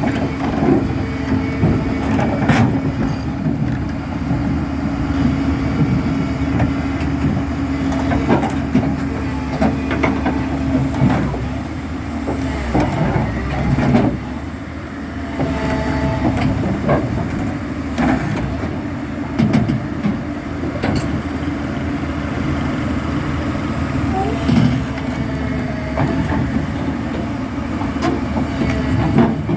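Hyundai 360LC tracked excavator's diesel engine running steadily, with frequent clanks and knocks from the machine as it is driven onto a trailer.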